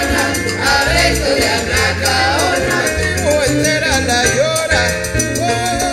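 Live salsa band playing, with a male lead voice singing over a steady bass line and dense percussion.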